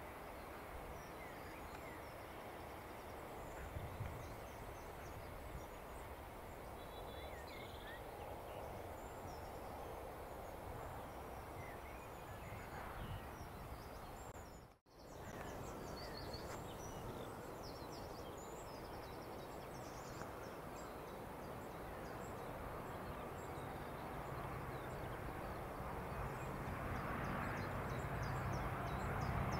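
Birds singing over a faint outdoor background, with a brief drop-out about halfway through. Over the last few seconds the low drone of an approaching GBRf Class 66 diesel-electric locomotive, an EMD two-stroke diesel, grows louder as it hauls a container train.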